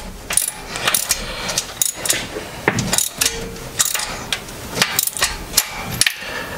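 A ratchet clicking in quick irregular runs as a socket tightens a brass water temperature sensor into the engine's coolant port. The sensor's brass body shears off near the end.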